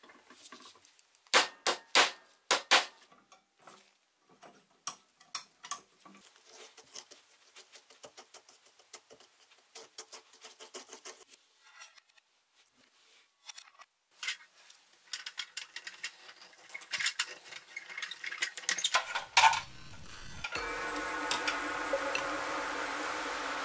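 Small metal toy-car parts clicking and clinking as they are handled and fitted together during reassembly, with a run of louder taps near the start and again shortly before the end. About twenty seconds in, a steady sound with several held tones begins.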